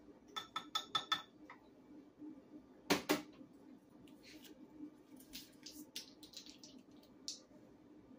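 A metal measuring spoon clinking against a glass measuring cup, four or five quick ringing taps, followed about three seconds in by two sharp knocks and then lighter scattered clicks of kitchen utensils and a bottle being handled.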